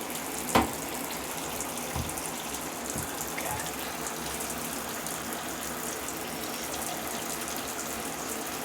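Water running steadily from a tap, filling the homemade washer, with a sharp knock about half a second in and fainter knocks near two and three seconds.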